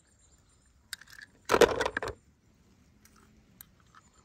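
Small die-cast metal toy cars clinking and rattling as they are handled: a click about a second in, a dense clatter of sharp clinks about a second and a half in, then a few faint ticks near the end.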